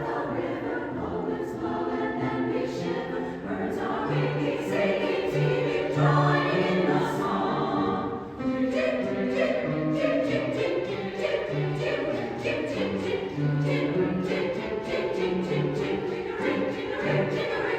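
Music: a choir singing a song over instrumental backing with a moving bass line. A quicker, regular percussive beat comes in about eight seconds in.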